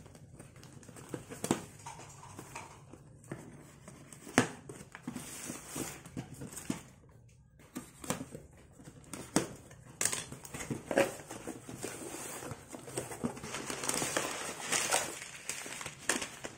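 A cardboard box being cut open by hand: a small blade scraping and slitting the packing tape, with tape tearing and sharp clicks and knocks of cardboard being handled. Near the end, the crinkle of a plastic food bag being pulled out of the box.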